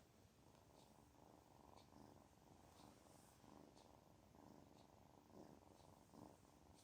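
Kitten purring softly and steadily, swelling and easing about once a second with its breathing.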